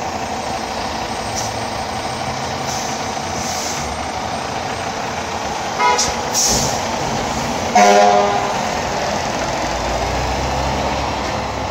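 FDNY fire engine's diesel running as it pulls out, with a brief horn toot about six seconds in and a louder, longer horn blast about two seconds later. The low engine rumble gets heavier near the end.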